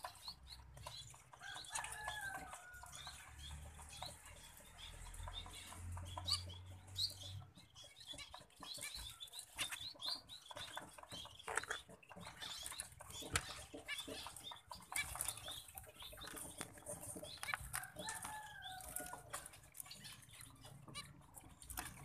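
Zebra finches calling with many short, high chirps throughout, over scattered clicks and rustling. Twice, about two seconds in and again near the end, a longer falling call from a bird stands out.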